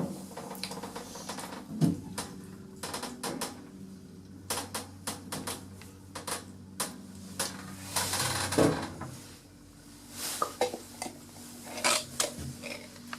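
Glass hydraulic lift in operation: a steady low hum of its machinery runs through the middle, with many small metallic clicks and knocks and two louder thuds, one about two seconds in and one near nine seconds.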